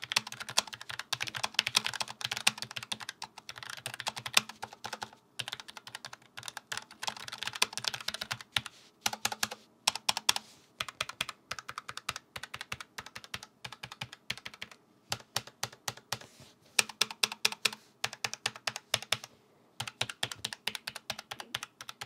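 Typing on a Logitech MX Mechanical keyboard with low-profile linear switches: fast runs of key presses, broken by brief pauses a few times.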